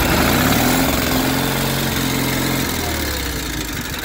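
John Deere 318's Onan flat-twin engine running just after start-up, holding a steady speed and then dropping to a lower idle about three seconds in. It runs pretty well on a fresh tune-up: valves set, new plugs, points gapped.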